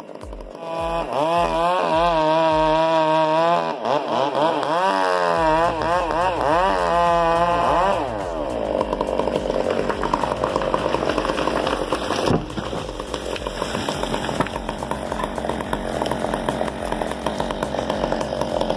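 Chainsaw engine revving up and down over and over for the first eight seconds or so, then running more steadily for the rest, with one sharp knock about twelve seconds in.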